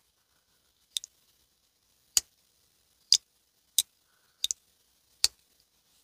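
Twosun TS200 slip joint knife worked open and shut by hand: the blade tang snaps against the titanium backspring with its steel stop pin, a sharp click each time, about seven in all and twice a quick double click. This is the knife's 'walk and talk', the snap of the spring as the blade opens and closes.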